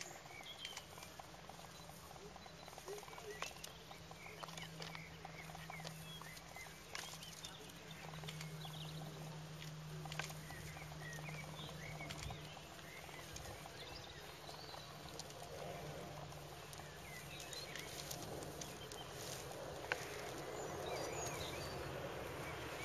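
Faint scattered clicks and rustling of dry twigs as a kudu bull rubs and twists a branch caught in its horns. Small chirps of birds sound in the background.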